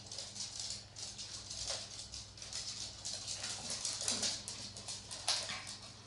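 Two small dogs, a Jack Russell terrier puppy and a Brussels Griffon, playing on a laminate floor: quick, irregular clicking and scrabbling of their claws on the floor, with one louder sharp sound about five seconds in.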